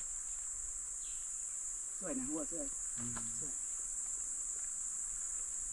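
Cicadas calling in chorus: a steady, high-pitched drone.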